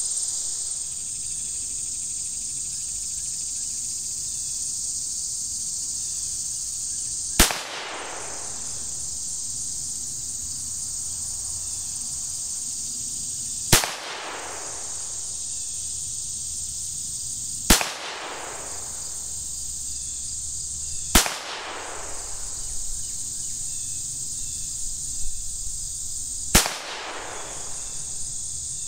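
Five single shots from a Ruger Standard .22 pistol firing high-velocity CCI Stinger .22 Long Rifle rounds, the first about seven seconds in and the rest three to six seconds apart, each a sharp crack with a short echo. A steady high-pitched hiss runs underneath.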